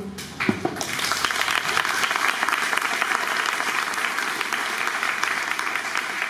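Audience applauding: dense, steady clapping that starts about half a second in.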